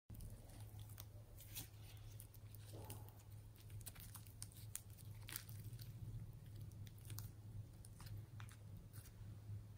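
Slime being kneaded and stretched by hand: a slime blended from putty slime and store-bought slime. It gives faint sticky clicks and pops scattered irregularly over a steady low hum.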